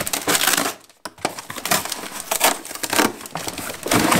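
Packaging crinkling and rustling as it is handled, in irregular scrapes, with a short lull about a second in.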